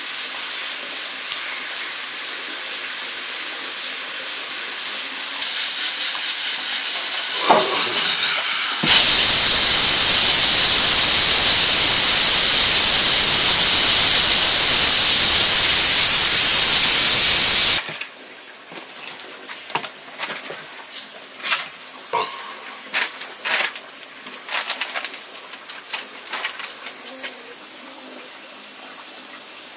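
Food frying in a pan with a sizzle that grows steadily. Then a loud hiss of steam runs for about nine seconds and cuts off suddenly. Quieter sizzling follows, with scattered light clicks and knocks.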